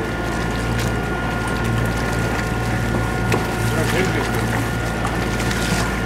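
Sailing yacht under way on its inboard diesel engine: a steady low engine drone with a few constant higher tones, over an even rush of water and wind noise.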